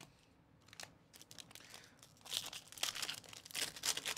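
Foil wrapper of a 2024 Topps Update baseball card pack being torn open and crinkled by hand, starting about halfway through, after a small click.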